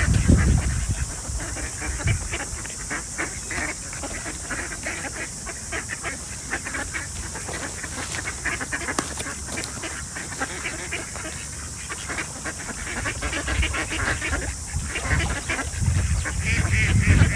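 A flock of mallards and white domestic ducks quacking and calling continually, many short calls overlapping. There is a low rumble at the start and again near the end.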